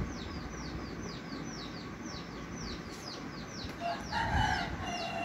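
Birds calling in the background: a small bird's short, high, falling chirps repeat about three times a second. About four seconds in, a louder, lower bird call joins them.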